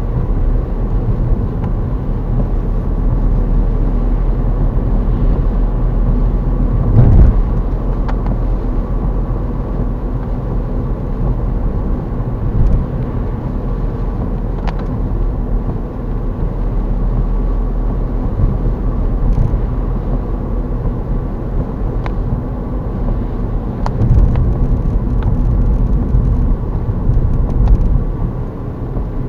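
Car interior noise while driving on a wet road: a steady rumble of engine and tyres, with a few short thumps, the loudest about seven seconds in.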